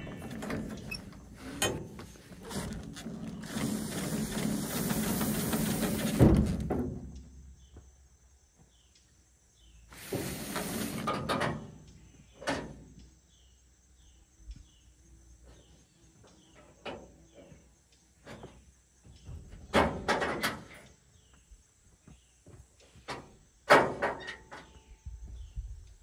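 Dump trailer's crank-operated roll tarp being cranked over a load of construction trash: several seconds of the tarp rustling and sliding as the crank mechanism turns, ending in a sharp thud, then a second shorter rustle. Scattered clicks and faint bird chirps follow.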